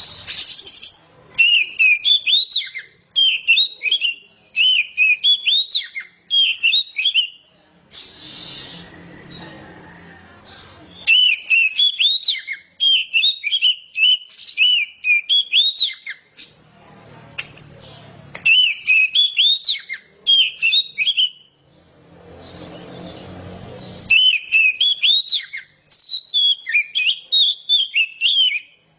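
Oriental magpie-robin singing loud, varied whistled phrases in bouts of several seconds, in the full, open style that keepers call ngeplong. Short pauses between bouts hold a duller low noise.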